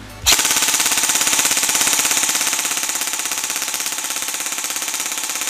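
Electric airsoft carbine (Evolution EVO Ultra Lite Carbine PDW) firing one continuous full-auto burst to empty the magazine: a fast, even rattle of the motor and gearbox cycling at about 17 rounds a second, starting about a quarter of a second in.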